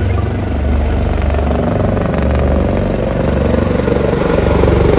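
Formation of four helicopters passing overhead, their rotors making a steady rhythmic beat that grows slowly louder toward the end.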